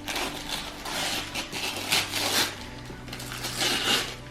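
Gift wrapping paper being torn and crinkled by hand in a series of rustling rips, with the loudest tears about two seconds in and again near the end.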